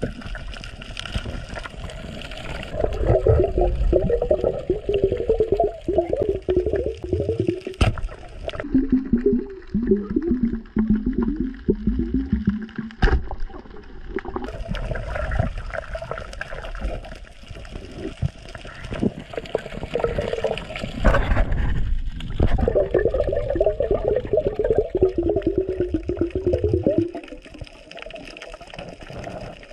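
Underwater gurgling of water and bubbles in several long bursts with a wavering low pitch, each a few seconds long, with quieter gaps between them.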